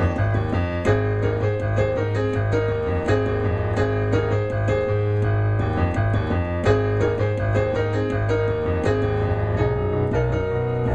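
Background music led by piano, with steady low bass notes underneath.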